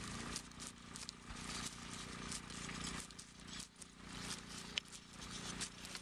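A pair of Clydesdale horses pulling a plough through a field: irregular clicks and rattles from the harness and trace chains as they walk, over a steady low hum.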